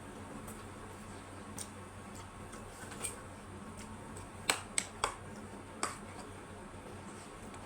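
Eating sounds during a noodle mukbang: scattered short, sharp clicks and smacks, with a quick run of three about halfway through and one more soon after.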